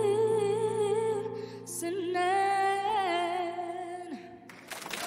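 A young girl's solo voice sings the last long held notes of a slow pop ballad with vibrato, over a sustained accompaniment chord that ends about four seconds in. Right at the end the audience's applause and cheering break out.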